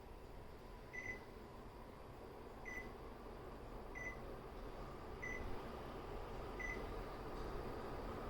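Panasonic F-M15GW ceiling fan beeping five times, short high beeps about a second and a half apart, as its receiver acknowledges remote-control button presses. Under the beeps, a steady rush of air from the fan grows gradually louder as it speeds up.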